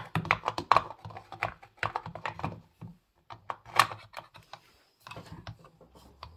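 Irregular clicks, taps and light knocks as a rebuilt Husqvarna 266XP chain brake assembly and side cover are fitted onto the chainsaw by hand, with the brake's hand guard being handled. The clicks are busiest in the first three seconds and grow fainter toward the end.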